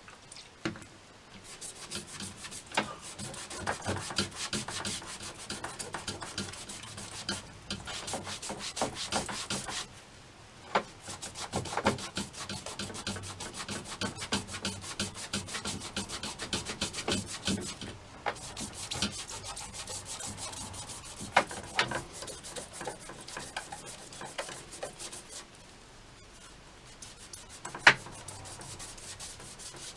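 Microfibre cloth rubbed briskly back and forth along a Zziplex 2500LM fishing rod blank in quick scratchy strokes, wiping the leftover decal residue off its gloss finish. The rubbing pauses a few times, and there are a few sharp clicks.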